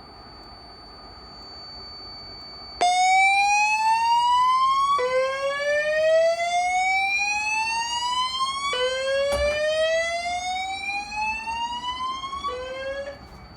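Fire alarm voice-evacuation speakers sounding the slow whoop evacuation tone between spoken messages. It starts about three seconds in, after a faint steady high whine. Each loud, buzzy tone rises slowly in pitch over about four seconds, then drops back and rises again, and the last sweep cuts off near the end.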